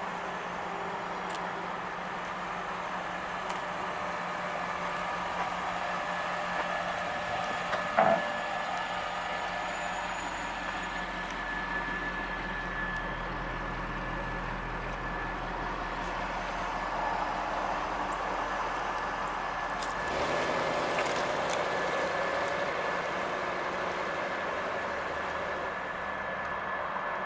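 A 1993 Chevrolet Corvette's 5.7-litre V8 idles steadily, with a deep exhaust rumble. A single sharp knock comes about a third of the way in. The engine note changes and grows a little louder as the car pulls away near the end.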